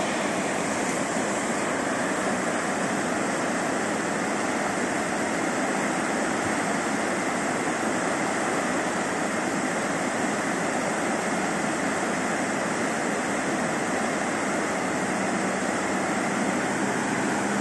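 Sandafossen waterfall on the Gaula river, a steady rush of falling white water.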